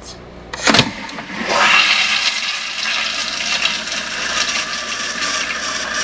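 A 2003 Kohler Highline Pressure Lite toilet with a Sloan Flushmate pressure-assist tank flushing. A sharp click comes about a second in, and then a loud, steady rush of water and air follows.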